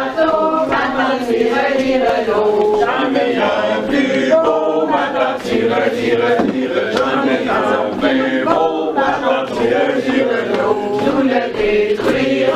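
A group of men and women singing a traditional French-Canadian song of Nouvelle-Acadie unaccompanied, as they go round hand in hand in a round dance.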